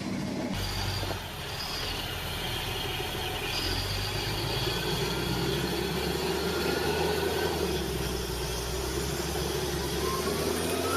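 Heavy machinery running with a steady low engine hum and thin, high-pitched metallic squeals over it.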